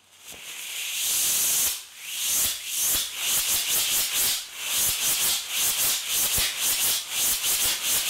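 Small 3D-printed rocket motor with a resin-printed saltpeter propellant grain firing: a rising hiss of exhaust that holds steady for about a second, then breaks into regular surges about two or three times a second. The motor is burning in pulses, like a pulse jet.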